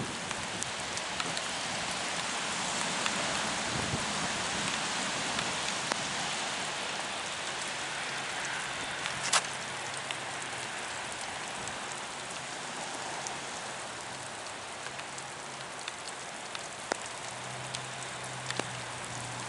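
Steady rain falling, with scattered individual drops ticking nearby and one louder tap about nine seconds in.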